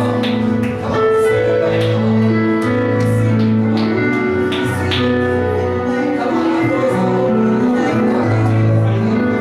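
Church band playing sustained chords with a held bass line and light percussion hits, the chords changing about once a second.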